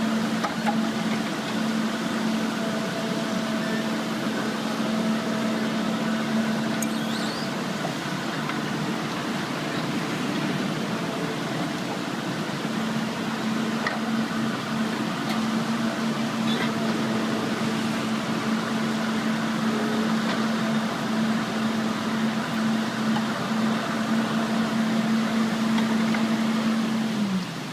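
Heavy-equipment diesel engine running at a steady speed, a constant hum with a mechanical drone; the hum slides down in pitch right at the end.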